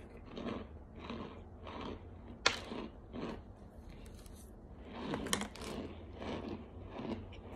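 Chewing a mouthful of crunchy chunks of starch, a crunch about every two-thirds of a second, with sharp cracks about two and a half seconds in and again a little after five seconds.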